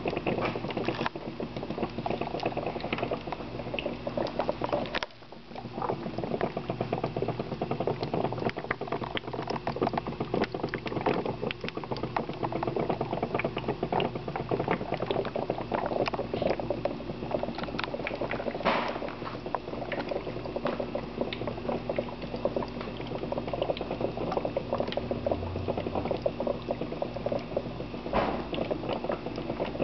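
HHO gas from a seven-plate dry-cell electrolyser bubbling hard through water in the bubbler and collection bottles: a steady fizzing gurgle of many small pops. It dips briefly about five seconds in, then carries on.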